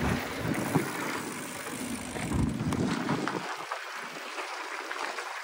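Wind rushing over the microphone and tyre noise on a dirt trail from a moving electric mountain bike, with a few knocks as it rides over bumps. The low rumble of the wind drops away about three seconds in.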